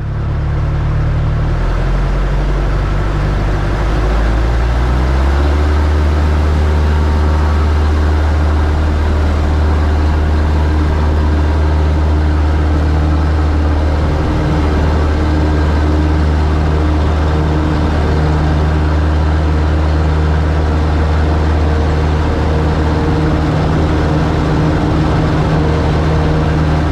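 Cub light aircraft's piston engine and propeller running, heard close up from the cowling. About four to five seconds in the engine note rises to a higher, steady pitch as the throttle opens for the takeoff run, and holds there.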